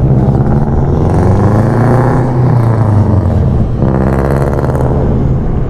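Motor vehicle engine running, its pitch rising and then falling, with another rise about four seconds in.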